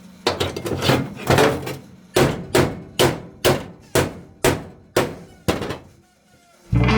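Hammer blows on sheet-metal car body panel, about a dozen sharp strikes at roughly two a second, stopping shortly before the end.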